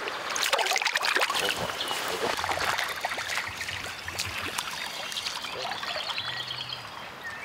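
River water splashing and trickling: a fish being let go by hand into the shallows, then a small hooked fish thrashing at the surface as it is reeled in and lifted out.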